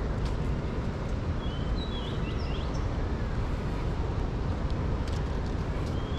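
Birds chirping a few quick notes about two seconds in and giving one short rising call near the end, over a steady low outdoor rumble with faint scattered ticks.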